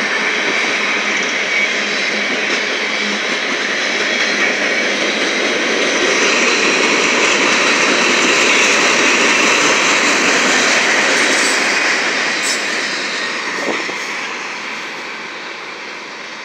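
Union Pacific manifest freight train's hopper cars rolling past on the rails, a steady rushing clatter of steel wheels on track. It grows louder through the middle and fades over the last few seconds as the end of the train goes by.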